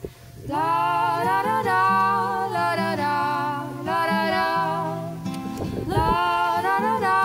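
Soundtrack song: female voices singing long held notes with no clear words, over acoustic guitar.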